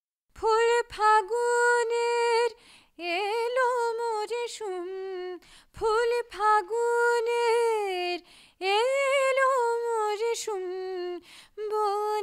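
A woman singing unaccompanied, a slow melody in long held phrases with short breaks between them.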